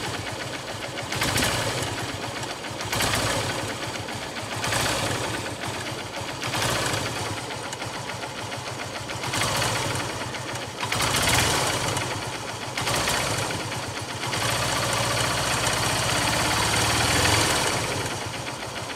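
Honda Unicorn motorcycle's single-cylinder engine running with a rapid ticking coming from the engine. The owner has no diagnosis for the tick. The sound swells about every two seconds and holds louder for a few seconds near the end.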